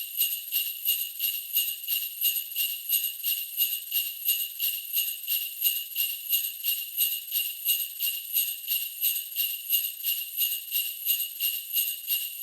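Jingle bells shaken in a steady, even rhythm, about three shakes a second, a bright high jingle with no lower sound under it.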